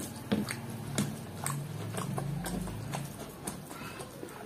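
Close-up chewing of a mouthful of rice and butter chicken gravy, with irregular wet mouth clicks and lip smacks and a brief low hum in the middle.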